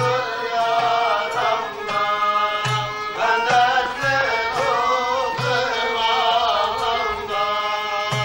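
Turkish folk music: a violin plays a wavering melody over repeated low strokes of a frame drum and a metal goblet drum (darbuka).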